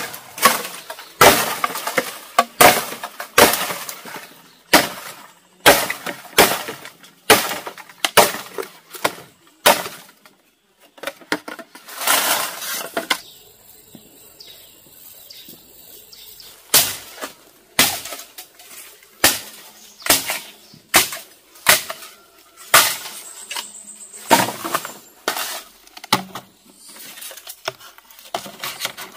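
Bamboo being chopped: a long run of sharp cracking strikes, about one to one and a half a second. The strikes pause briefly about ten seconds in, give way to a longer crackling stretch, then start again.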